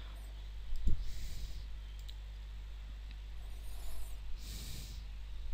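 A single computer mouse click about a second in, over a steady low electrical hum.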